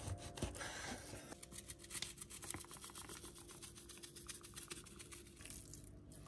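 A knife cutting through raw chicken breast onto a bamboo cutting board, with a couple of soft thumps at the very start. After about a second comes a rapid run of small crackling clicks lasting several seconds, as the diced chicken is seasoned with salt and pepper.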